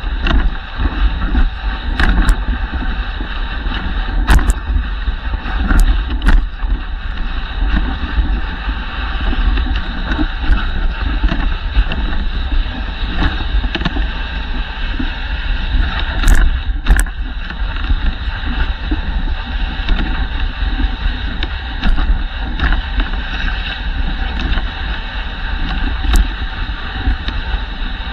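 Dog sled runners sliding over a packed snow trail: a continuous hiss with a heavy rumble, broken now and then by sharp knocks and clicks as the sled jolts along.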